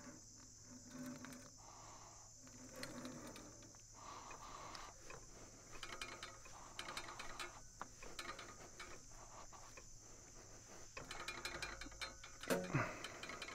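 Band-saw blade being fitted by hand onto the blade wheels of a Norwood portable sawmill: scattered metal clicks, rattles and handling noise, with one louder clank near the end. Insects buzz steadily in the background.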